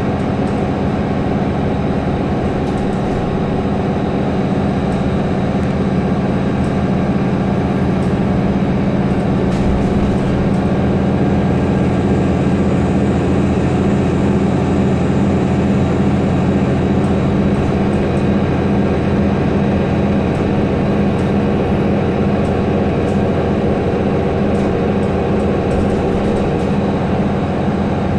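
Mercedes-Benz O530 Citaro city bus heard from inside its cabin on the move: a steady drone of engine and road noise with faint rattles, getting slightly louder about six seconds in.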